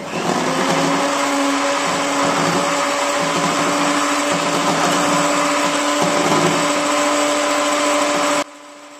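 Electric hand mixer (Multimix Genius Duo) running at a steady speed, its beaters whisking instant coffee, powdered sugar and water in a glass bowl. A steady motor whine with a rushing hiss, cutting off suddenly about eight seconds in.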